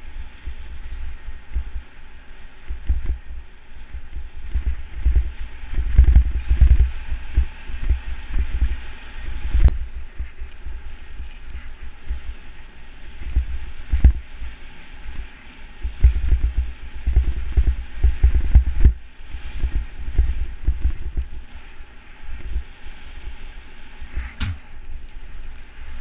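A mountain bike rolling fast over dirt singletrack: irregular low thumping and rattling as the bike and camera jolt over bumps, under a steady hiss of tyres and wind, with a few sharp knocks.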